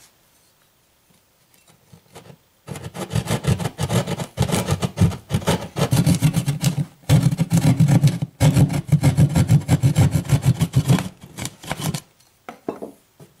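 Hand drywall jab saw cutting through drywall in rapid back-and-forth strokes. It starts about two and a half seconds in, pauses briefly twice, and a few last strokes come near the end.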